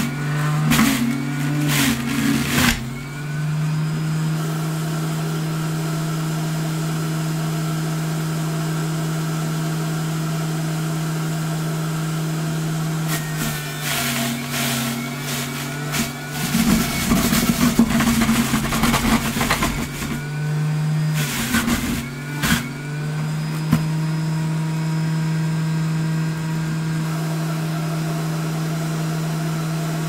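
Bosch 700 W centrifugal juicer running with a steady motor hum. Near the start, and again from about 13 to 23 seconds in, vegetables are pressed down the feed chute. The shredding disc grinds through them with a rough crunching noise, and the motor note wavers under the load.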